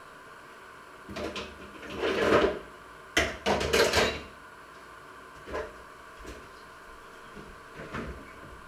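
Dishes and kitchenware being handled at a kitchen sink: a series of separate knocks and clatters, the loudest cluster about two to four seconds in, with a few softer ones later.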